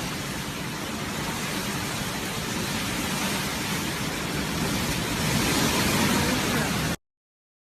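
Storm wind and rain: a loud, even rushing hiss with an unsteady low rumble, which cuts off suddenly near the end.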